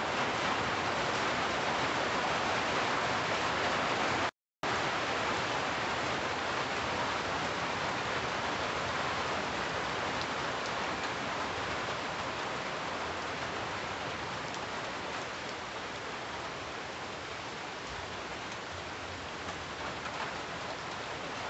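Steady rain falling on the leaves of a dense tree canopy, a constant hiss of many drops. The sound cuts out completely for a split second about four seconds in, and eases slightly over the second half.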